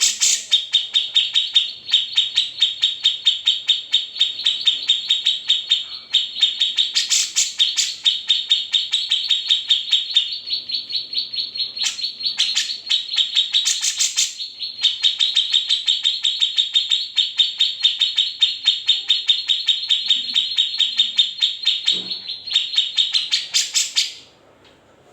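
Grey-cheeked bulbul (cucak jenggot) singing a long, fast trill of repeated high notes, about ten a second. It breaks off briefly a few times, adds a few louder, harsher notes, and stops shortly before the end.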